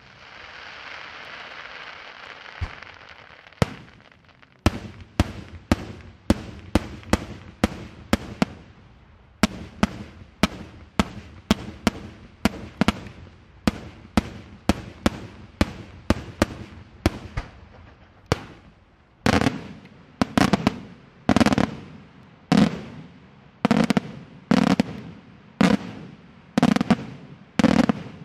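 Daytime fireworks shells bursting in a long, rapid series of sharp bangs, about two and a half a second, after a brief crackling hiss at the start. From about two-thirds of the way through, the bangs turn deeper and heavier and come about one and a half a second.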